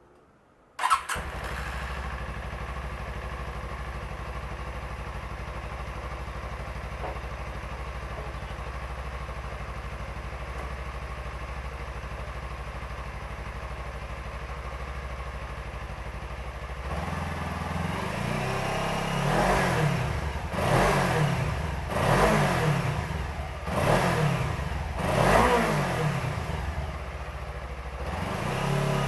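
Suzuki V-Strom 250's parallel-twin engine starting with a sharp catch about a second in, then idling steadily. In the second half the throttle is blipped about five times in a row before it settles back to idle.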